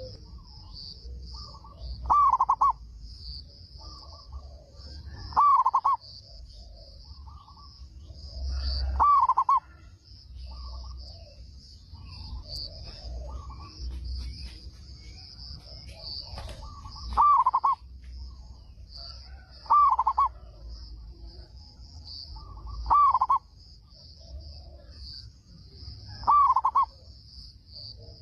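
Zebra dove (perkutut) cooing. It repeats its loud call phrase seven times, roughly every three seconds, with softer notes between phrases and a steady high buzz behind.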